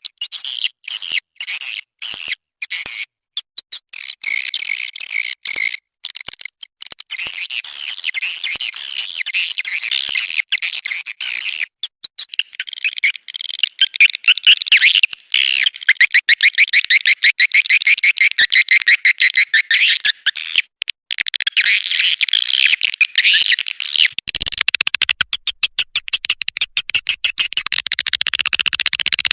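Swiftlet calls played as a lure track: dense, rapid high twittering and chirping. For about the first twelve seconds it is broken by many short gaps, and after that it runs on without a break.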